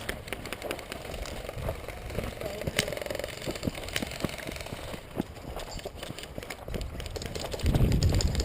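Footsteps and gear rustling as a player moves on foot, with many irregular clicks and ticks, and a louder low rumble near the end.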